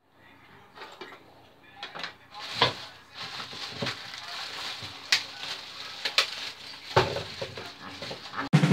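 Plastic carrot bag crinkling and rustling as the carrots are handled on a wooden chopping board, with a few sharp clicks and knocks. Drum-led background music comes in near the end.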